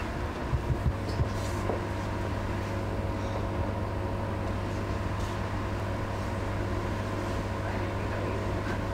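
Steady hum of laboratory equipment: a low drone with a few steady higher tones above it. There are a few light knocks about a second in.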